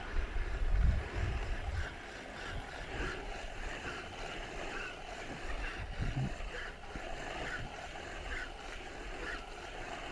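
Small waves lapping and splashing against the hull of a small kayak on open sea, in small repeated slaps. Wind buffets the microphone in the first couple of seconds.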